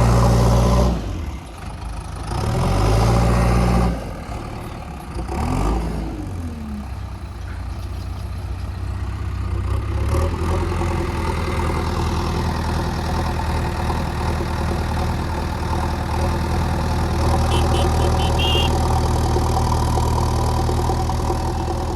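Heavy diesel engine running, its speed dropping and rising several times in the first few seconds, with a short rising rev about five seconds in, then running steadily.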